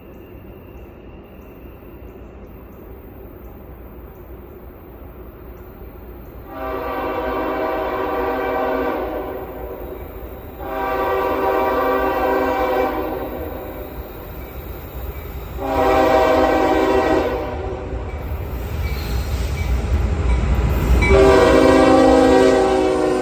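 CSX freight locomotive's multi-chime air horn sounding four blasts, long, long, short, long, the pattern blown for a grade crossing. A low rumble of the approaching locomotive builds under the last blast.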